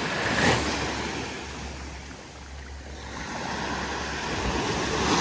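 Ocean surf washing onto the beach, one wave breaking about half a second in and another near the end, with a low wind rumble on the microphone.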